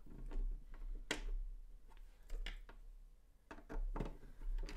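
Scattered light clicks and knocks of a 3D-printed handbag's hard parts being handled and fitted together, about half a dozen, the loudest about a second in.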